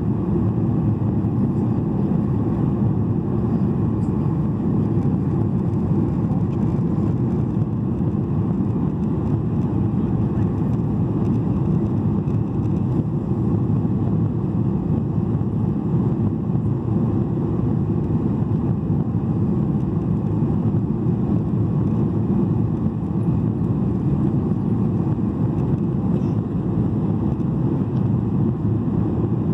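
Steady low rumble of cabin noise inside a Boeing 737-800 on final approach, from its CFM56-7B engines and the air rushing over the wing with the flaps extended.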